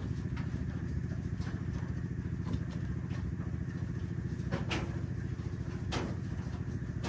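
A motor running steadily with a low, pulsing drone, and a few short knocks about four and a half and six seconds in.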